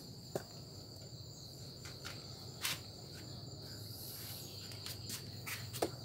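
Steady, faint high-pitched insect trilling, like crickets, with a few light clicks and knocks from handling.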